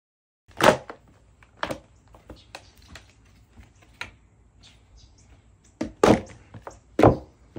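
Pop and Load collapsible plastic laundry basket being pushed down and folded flat: a series of sharp plastic cracks and clacks with lighter ticks between them. The loudest comes about half a second in, and two more strong ones near the end.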